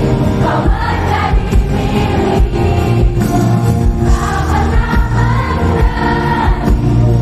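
Loud amplified live concert music: a singer's voice carrying a melody over the band, with a heavy bass beat.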